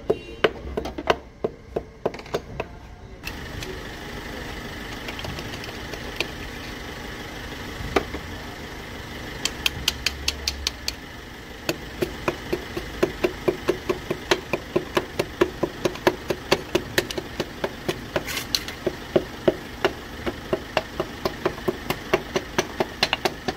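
A rod knocking a piston down through a ring compressor into a cylinder bore of a Hyundai Verna diesel engine block: sharp, repeated knocks, a few at first, then a steady run of about three a second from about a third of the way in.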